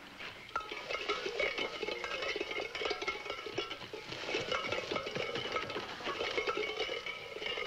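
Background film-score music, with quick short notes over held tones.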